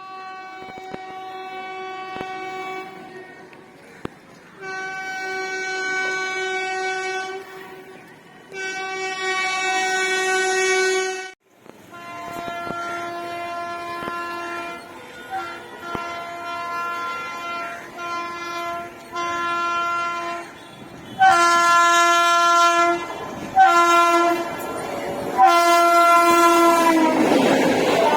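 Indian Railways WAP-7 electric locomotive horns: three long blasts, then after a cut a slightly lower horn in a string of shorter blasts. Near the end the horn's pitch drops as the train passes, and the rumble of the passing train rises.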